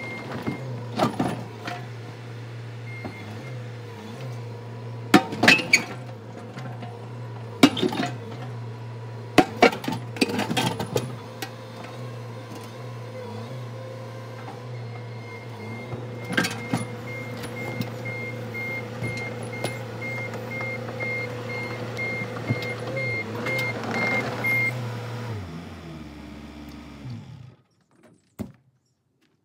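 Bobcat compact excavator's diesel engine running steadily, with the bucket knocking and scraping on dirt and rocks, and a warning alarm beeping about twice a second for several seconds past the middle. Near the end the engine winds down and shuts off.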